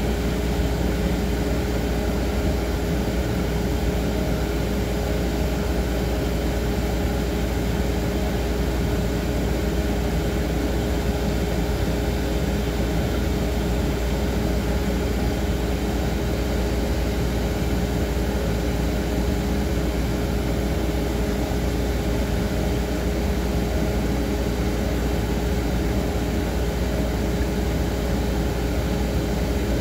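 Steady machine hum with a constant mid-pitched tone over a low rumble, unchanging throughout.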